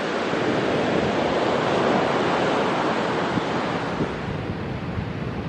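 Heavy post-storm Atlantic surf breaking and washing ashore, a continuous rush of water with wind on the microphone; it swells about two seconds in and eases a little after four.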